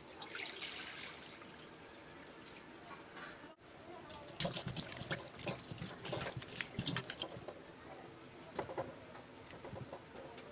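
Water pouring and splashing in a kitchen, with a busy run of sharp knocks and clatter in the middle.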